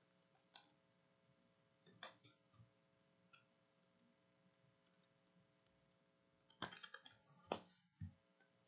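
Faint, scattered clicks and taps of trading cards being handled and set down on a stack, with a quick run of clicks near the end.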